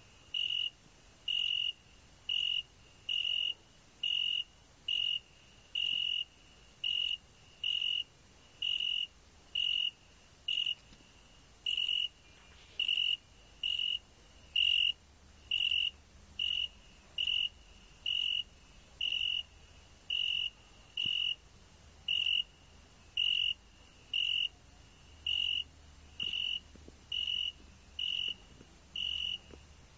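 Cricket chirping in a steady rhythm, a little more than one short, high-pitched chirp a second.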